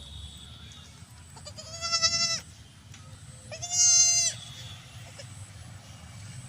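A goat bleating twice, each call under a second long and about two seconds apart, over a low steady rumble.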